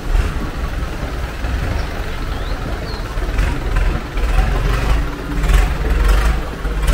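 Thai long-tail boat's engine running as the boat passes close by, a steady low rumble that grows louder in the second half.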